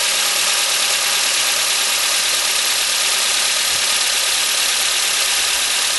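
Toyota Corolla E10 running steadily, with a dense, even hiss over it and no clear change.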